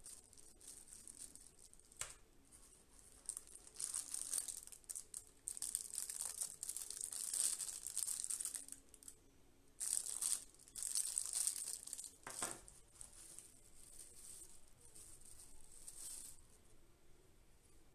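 Small clear plastic bags holding action-camera mounts crinkling in irregular bursts as they are handled, with a couple of light knocks.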